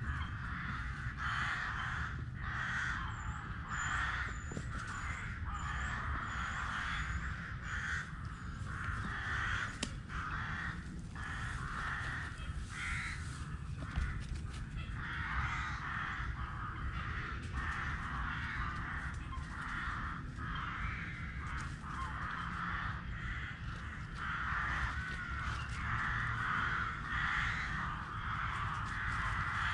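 Crows cawing over and over, harsh calls following one another in quick succession, with a short run of thin high chirps a few seconds in, over a steady low rumble.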